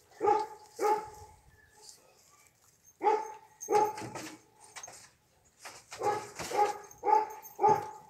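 A dog barking in short groups: two barks near the start, a few more about three seconds in, and a run of barks near the end, with brief pauses between.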